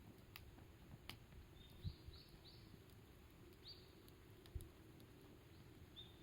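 Campfire crackling faintly, with scattered sharp pops, and a bird giving a few short high chirps. Two soft low thumps, about two seconds in and again past four seconds.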